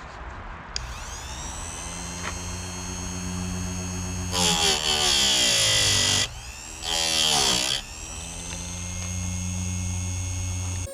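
Electric chainsaw chain sharpener's motor starts up about a second in and runs with a steady hum. Twice, the grinding wheel is brought down onto a chain tooth, giving a loud grinding rasp of about two seconds and then about one second, with the motor's pitch dipping under the load.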